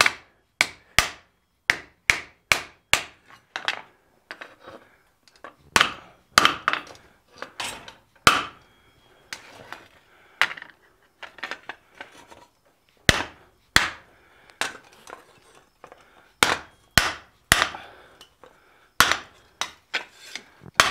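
Steel hand hammer striking red-hot fold-formed sheet steel on an anvil with sharp, ringing blows. The blows come in runs of about two a second, with softer taps between the runs.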